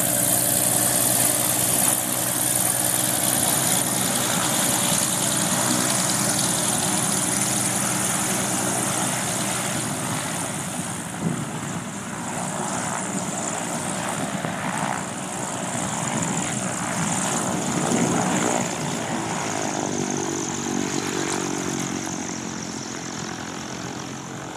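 Single-engine propeller aerobatic plane running as it taxis away across the apron. It is loud at first and gradually fades toward the end as the plane moves off.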